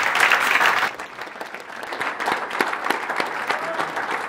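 Audience applauding: a full round of clapping that drops off sharply about a second in, leaving scattered individual claps.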